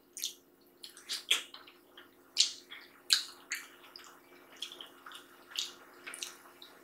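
Close-miked wet eating sounds: chewing and lip smacks, with fingers picking chicken out of stew and pinching sadza. They come as a dozen or so short, sharp, wet clicks and smacks scattered through, over a faint steady hum.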